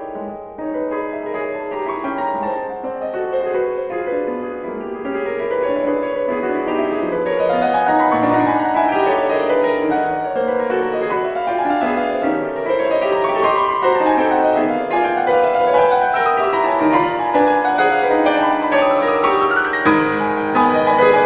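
Solo classical piano music playing, with runs of notes that climb and fall.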